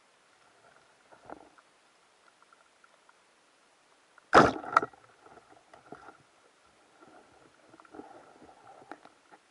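Rubber-band speargun fired underwater: one loud sudden crack as the bands release and the shaft launches, with a second, smaller crack about half a second later as the line snaps taut. Faint clicks and crackling of shallow water before and after.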